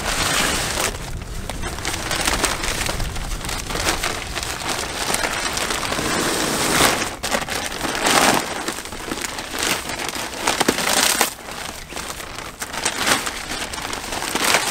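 Thin plastic bag crinkling and rustling as a roll of plastic deer netting is pulled out of it, with several louder crackles in the second half.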